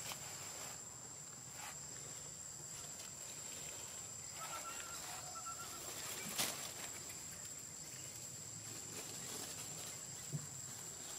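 Forest ambience with a steady high-pitched insect drone. A faint, thin, broken call comes about four and a half seconds in, and a sharp click about six seconds in is the loudest sound.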